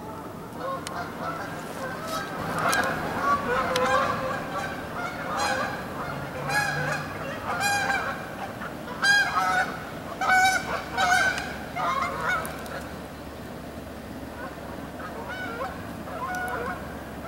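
A flock of geese honking, many repeated calls one over another, busiest in the middle and dying away over the last few seconds.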